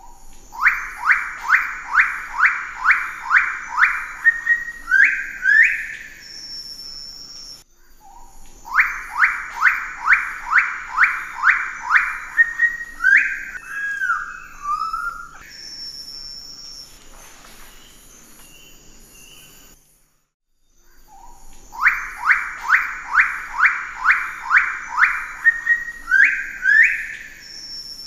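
Pale-billed sicklebill bird of paradise singing: a run of about nine loud, evenly spaced notes, then a few rising notes. The song is heard three times, over a steady high buzz in the background.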